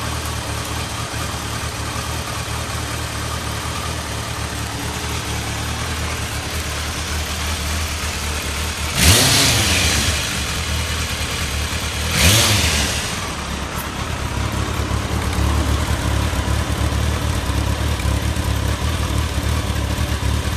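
Kawasaki ZRX1200S inline-four engine idling steadily and smoothly through its exhaust, blipped twice, about nine and twelve seconds in, each time revving up quickly and falling back to idle.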